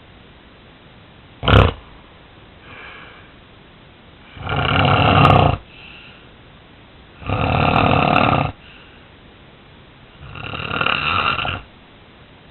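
A sleeping person snoring loudly: three long snores about three seconds apart, each lasting a little over a second, with fainter breaths between them. A short sharp sound comes about a second and a half in.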